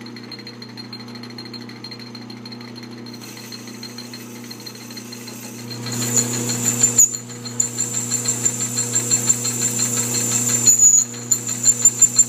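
Craftsman/Atlas 12 x 36 metal lathe running with a rattle from its defective back gear. About six seconds in the cutting tool starts machining the annealed bearing race, and the sound gets louder, with a high whine and a pulsing rattle.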